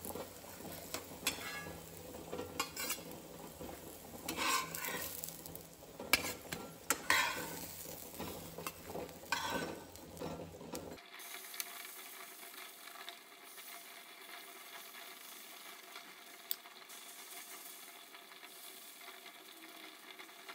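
Metal spatula scraping and tapping against a nonstick frying pan as fried prawn omelettes are lifted out, over oil sizzling in the pan. About eleven seconds in the sound changes abruptly to a fainter, steady sizzle with only an occasional tap.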